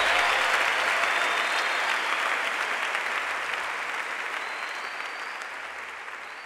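A worship congregation applauding, dense steady clapping that fades gradually and then cuts off abruptly near the end.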